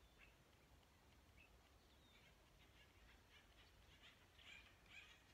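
Near silence, with faint, short, high-pitched animal calls scattered throughout that grow busier from about four seconds in.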